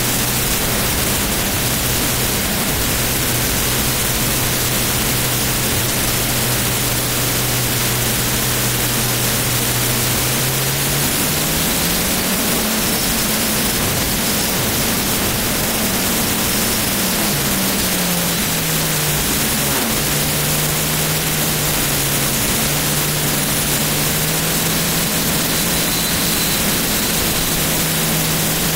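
The Flash Fire jet truck's jet engine running, a loud steady rush with a low hum underneath that rises in pitch about a third of the way through and settles back down a few seconds later.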